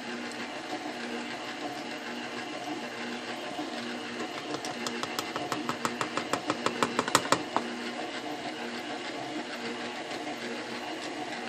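Electric stand mixer running steadily as it beats a thin bread-roll batter. Midway there is a rapid run of light ticks, about five a second, that grows louder for a few seconds and then stops.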